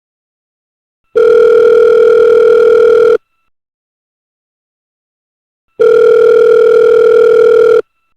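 Telephone ringing with a steady electronic buzzing tone: two rings of about two seconds each, the first starting about a second in and the second a couple of seconds after it ends, with silence between.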